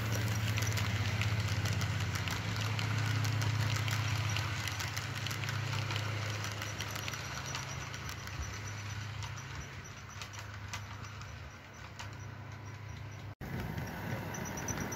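OO gauge Bachmann Class 66 model locomotive's motor humming steadily, with the wheels of it and its hopper wagons clicking over the track as the train passes. The hum fades after about five seconds as the locomotive moves away, and the sound cuts out for an instant near the end.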